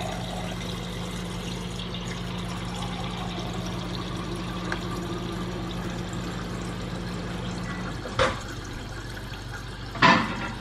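Refrigerator door water dispenser running water into a glass with a steady hum. This is the first water through a newly fitted filter. The flow and hum stop about eight seconds in, followed by two short knocks.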